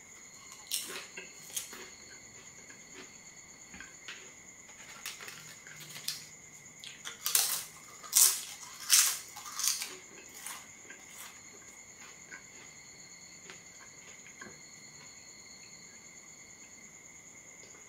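Crisp, thin flatbread crackers crunched between the teeth while being eaten, close up. There are scattered single crunches, then a run of loud crunches in the middle.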